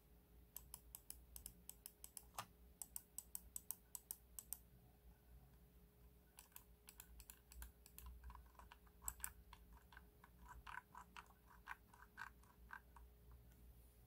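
Faint clicking from the scroll wheel of a Logitech M90 mouse: a quick run of sharp clicks for about four seconds, a short pause, then a second, longer run of slightly fuller clicks.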